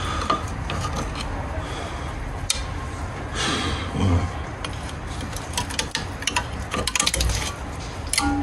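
Scattered metallic clicks, knocks and scraping of hand tools working at a seized front brake caliper and rusted disc, with a cluster of quick clicks about seven seconds in.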